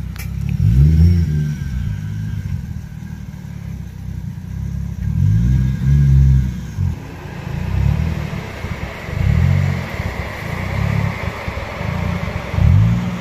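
Turbocharged 1JZ-GTE inline-six in a Lexus IS300, fitted with a single S366 turbo, idling and being revved repeatedly while stationary: a run of short throttle blips, the longest about six seconds in, each rising and falling back to idle.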